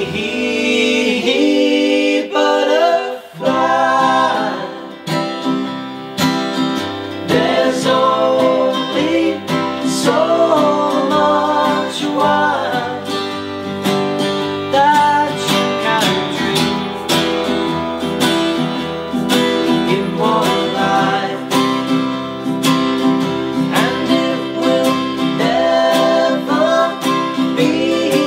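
Unplugged acoustic band performance: plucked and strummed acoustic strings accompanying male singing.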